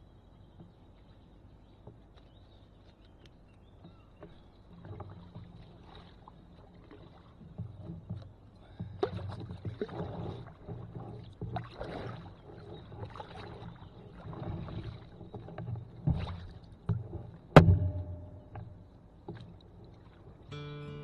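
Canoe paddle strokes in the water, a swishing splash roughly once a second, starting a few seconds in. One sharp knock stands out near the end.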